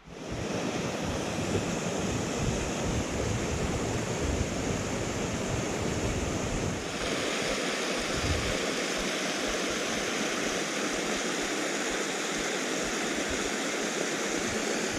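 Small moorland stream rushing steadily over granite rock slabs in a shallow cascade.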